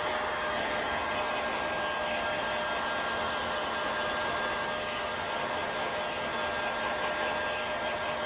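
Heat gun blowing steadily with a constant whine, heating window tint film to shrink it onto a car's rear glass.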